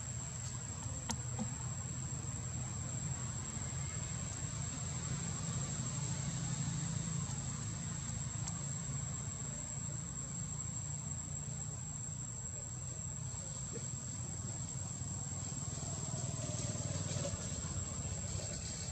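Steady high-pitched insect drone, one unbroken tone throughout, over a low steady rumble.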